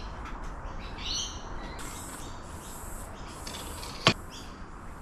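Birds chirping and calling in the background, with one sharp knock about four seconds in.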